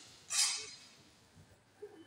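A single 10 m air rifle shot about a third of a second in: a sharp crack that fades over about half a second in the range hall.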